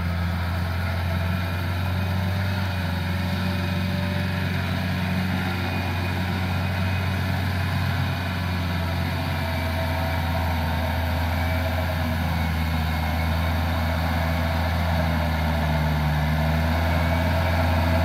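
Diesel farm tractor engine running steadily with a low hum as it pulls a rotary tiller through a wet rice paddy.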